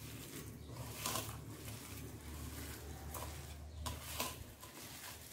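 A hand squeezing and mixing coarse-ground chana dal batter with chopped onions and herbs in a stainless-steel bowl: soft wet squishing and rustling, with a few louder squelches about a second in and again around three to four seconds in.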